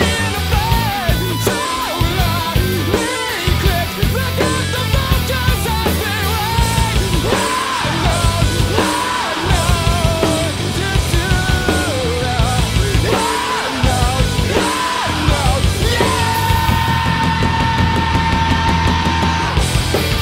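Loud post-hardcore band recording: distorted electric guitars, bass and drums. About sixteen seconds in, a single high note is held for around three seconds, then cuts off near the end.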